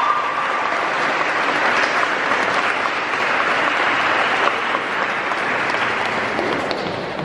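Congregation applauding, a dense steady clatter of many hands clapping that tapers off near the end.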